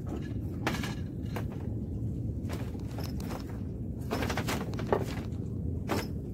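Irregular sharp knocks and clicks of footsteps and gear being handled on a wooden plank deck, over a steady low rumble of wind on the microphone.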